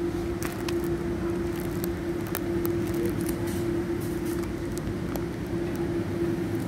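Steady hum of a busy supermarket's background noise, with one held tone and a low rumble under it, and scattered light clicks and taps throughout.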